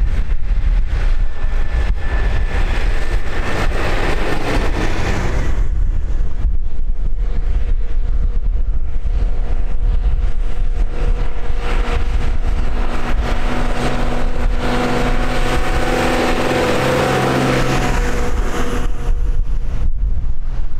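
Two tractors pass close by one after the other, each engine swelling as it nears and fading as it goes: the first a few seconds in, the second in the latter half with a clear steady engine note. Wind rumbles on the microphone throughout.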